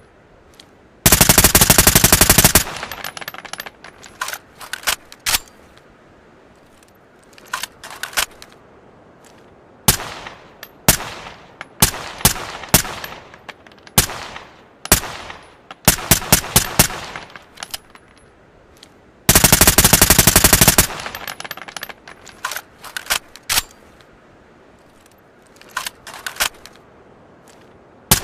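Suppressed ARN-180 assault rifle firing single shots and short bursts, each with a short ringing tail. Two long full-auto bursts of about a second and a half each come about a second in and near twenty seconds in.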